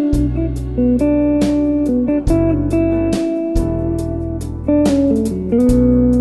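Smooth jazz instrumental: a guitar plays a melody of long held notes over bass guitar and a steady drum beat.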